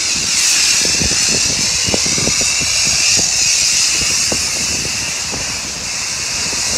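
Self-service car wash high-pressure foam lance spraying foam: a steady, loud hiss with irregular soft knocks underneath.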